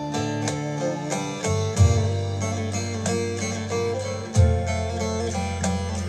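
Turkish folk music: a bağlama (long-necked saz) plays a quick run of plucked notes over a low sustained bass that changes note twice.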